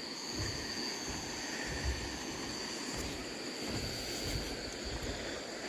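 Steady high chirring of crickets and other night insects over an even rushing hiss, with irregular low rumbles underneath.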